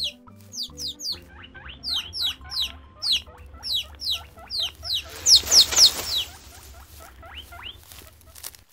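A rapid run of short, high, cartoon-style squeaks, each falling in pitch, about three a second over soft background music. Around the middle, a burst of noise comes with the loudest squeaks.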